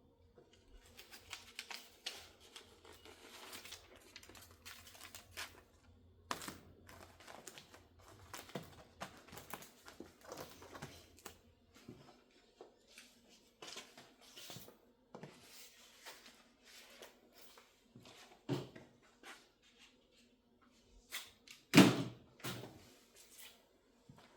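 Hands working on fire-rated insulation wrapped round a pipe elbow, with adhesive tape being pulled, torn and pressed down: scattered rustles, crinkles and small clicks. A single loud knock about 22 seconds in.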